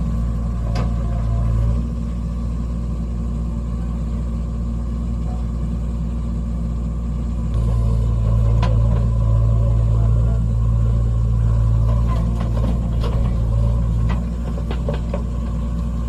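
JCB 3DX backhoe loader's diesel engine running steadily while the backhoe arm digs, working louder under load for several seconds from about halfway through. A few sharp knocks are heard along with it.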